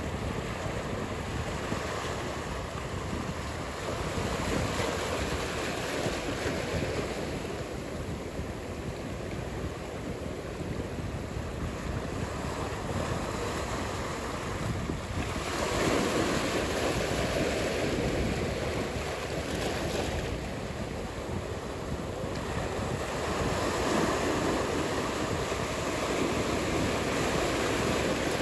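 Ocean surf: a steady rushing wash of breaking waves, swelling louder about halfway through and again near the end.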